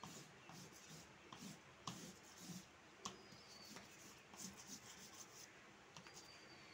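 Faint rubbing and scratching of colour being stroked onto paper, in short irregular strokes.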